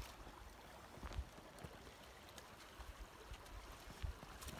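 Faint footsteps of a person and a horse walking through wet snow and mud: a few soft, irregular low thumps over a steady quiet hiss.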